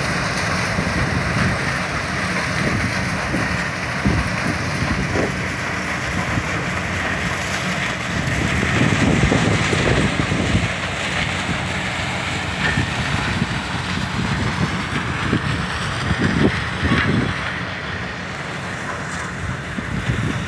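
Sugarcane harvesting machinery running steadily, with wind gusting on the microphone.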